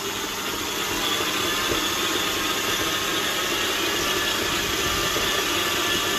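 Kenwood kMix stand mixer's motor running steadily at high speed, its dough hook kneading naan dough in a stainless steel bowl. It gets a little louder about a second in as the speed comes up.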